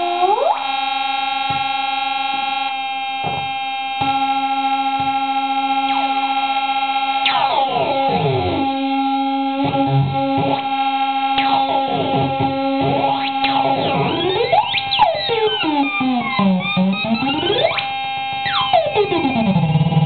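MFOS Weird Sound Generator, a DIY analog synthesizer, played through an amplifier: a steady droning tone with stacked overtones as the knobs are turned. From about seven seconds in, pitch glides sweep up and down over the drone in repeated swoops.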